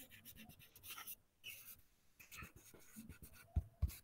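Faint scratching of a stylus writing words by hand on a digital writing surface, in many short strokes, with two sharper taps about three and a half seconds in.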